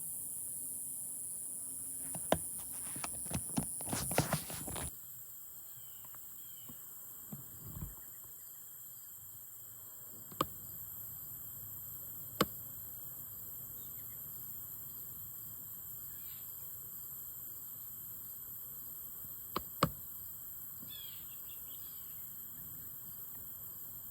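Outdoor evening ambience: a steady high-pitched insect drone, with a cluster of clicks and rustles about two to five seconds in, a few single sharp clicks later, and a brief bird chirp near the end.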